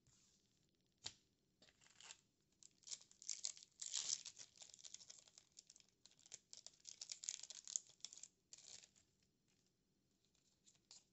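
Foil Yu-Gi-Oh booster pack being torn open and its wrapper crinkled, a run of crackly rips and rustles over several seconds, busiest in the middle.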